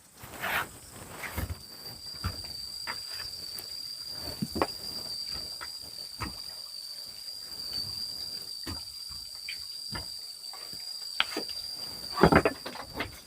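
An insect trilling on one steady high note, starting about a second in, over scattered light knocks and rustles, with a louder rustle near the end.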